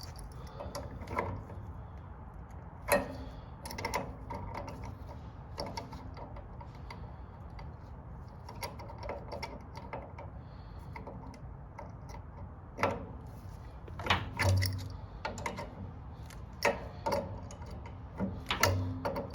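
Irregular clicks, taps and knocks of hand tools and metal parts as a gas water heater's control valve and burner are taken apart, over a low steady hum. The knocks come thicker in the second half.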